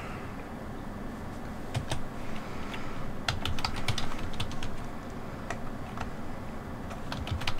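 Typing on a computer keyboard: sharp key clicks in short irregular runs, starting about two seconds in and coming thickest a little past the middle and again near the end.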